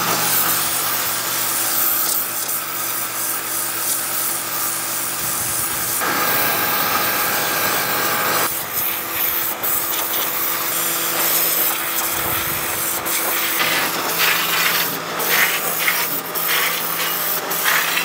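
Electric pressure washer running: a steady motor-and-pump hum under the hiss of the high-pressure water jet spraying the steel offset smoker, rinsing off the degreaser.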